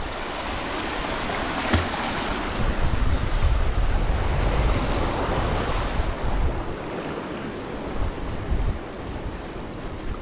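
Sea waves washing onto the shore, the surf swelling for a few seconds and then easing, with wind buffeting the microphone.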